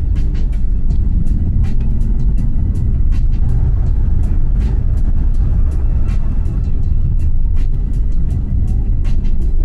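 Car driving along a mountain road, heard from inside the cabin: a steady low rumble of engine and tyres on the road, with frequent short clicks and light knocks throughout.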